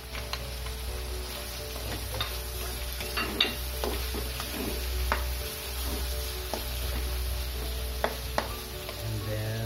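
Chicken drumsticks sizzling in a wok as they are stirred with a spatula, with irregular scrapes and taps of the spatula against the pan.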